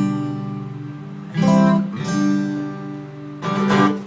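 Acoustic guitar strumming the closing chords of the song: three strummed chords, each left to ring and fade, the last about three and a half seconds in, then the guitar stops near the end.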